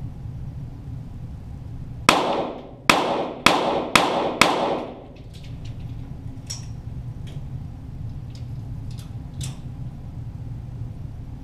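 .22 rimfire Walther GSP target pistol shots: five in quick succession about two seconds in, each echoing briefly. Fainter sharp snaps follow at uneven intervals over a steady low hum.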